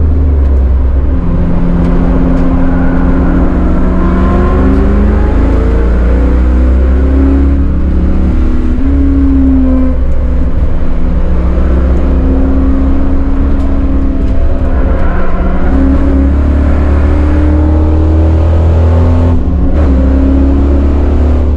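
Chevrolet Caprice's LT1 V8 heard from inside the cabin, pulling hard under load on a road course. Its pitch climbs and holds as it accelerates between corners, with a brief dip near the end.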